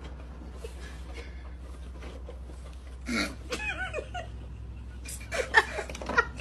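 A person laughing and giggling close to the microphone, in bursts about three seconds in and again near the end, over a steady low hum.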